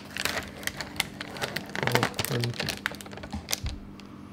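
Plastic kimchi tray and its peeled-back film lid crinkling and clicking as they are handled, in scattered small crackles, with a brief low murmur about two seconds in.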